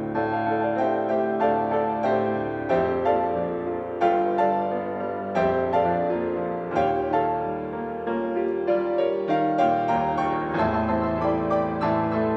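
Piano playing a flowing piece: a continuous run of ringing notes with a stronger chord struck every second or so.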